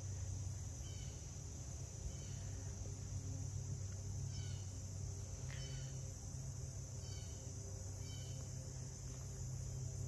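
Steady high insect chorus, with a few faint short chirps over it and a low steady rumble beneath.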